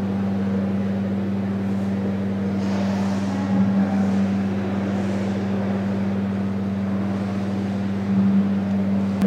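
A steady low drone: deep tones held without a break under a faint hiss, swelling slightly a few times.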